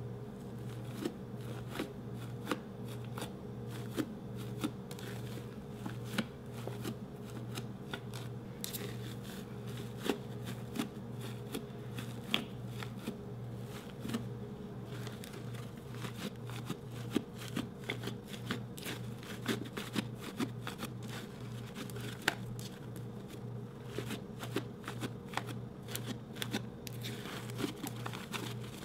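Hands kneading and squeezing thick slime, giving many small irregular crackles and pops, over a steady low hum.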